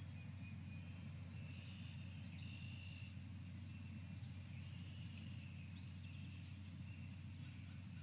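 Faint outdoor ambience from a live bird-feeder camera stream: a steady low hum with faint, high bird calls now and then.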